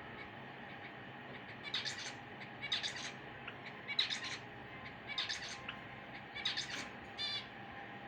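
Java sparrow calling: five short, high chirping bursts about a second apart, then one brief clear note near the end.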